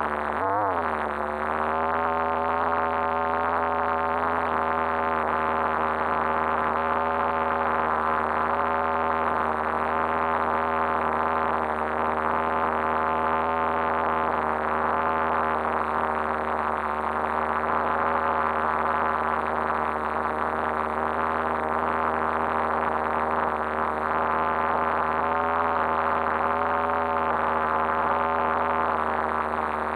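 Small RC-car combustion engine idling at a steady pitch, after a brief rise and fall in revs at the start. It sounds muffled and boxy through the fully sealed action-camera housing.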